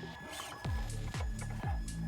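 Background electronic music: a quiet bass line, then about half a second in a heavy kick drum comes in on every beat, about two a second, with hi-hat ticks between.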